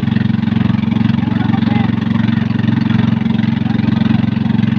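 Small boat engine running loud and steady at an even speed, with water rushing and splashing past the hull.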